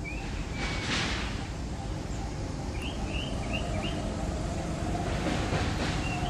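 Outdoor ambience: a steady low rumble with a few short high chirps, four in quick succession about three seconds in and a couple more near the start and end.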